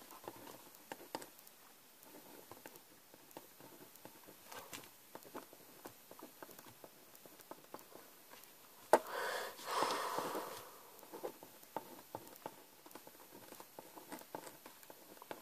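Faint scratching and small ticks of a pen drawing on a scrap of paper on a table, with a sharp click and a brief louder rush of noise about nine seconds in.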